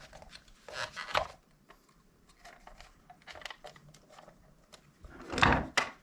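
Small clicks and rustling of hands working a hot-melt glue gun on a small plastic chime module, with a louder scraping rustle near the end.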